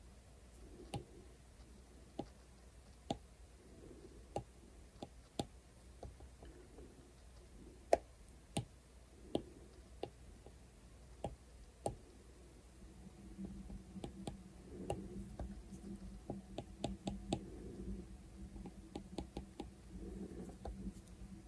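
Stylus tip tapping on an iPad's glass screen: single sharp taps about once a second, then quicker clusters of taps in the second half. A low steady hum joins in about halfway through.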